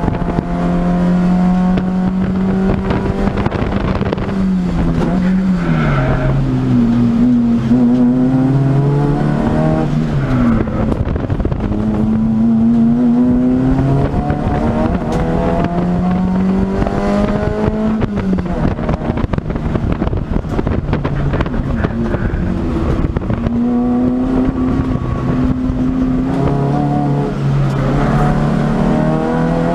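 Toyota Starlet EP82 race car's engine, heard from inside the stripped cabin while being driven hard round a circuit. The engine pitch climbs steadily, drops back sharply and climbs again, about five times over the lap.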